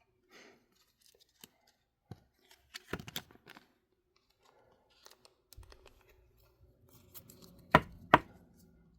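Trading cards being handled: soft rustles and clicks of card stock, with a cluster about three seconds in and two sharp taps about half a second apart near the end.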